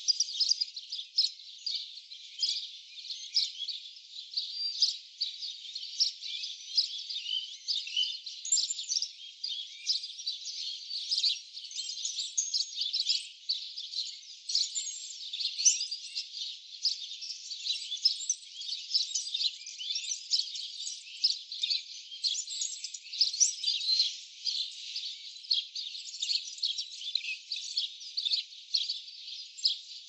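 Dense chorus of many small birds chirping and twittering, the short calls overlapping without a break; the sound is thin and high, with nothing low in it.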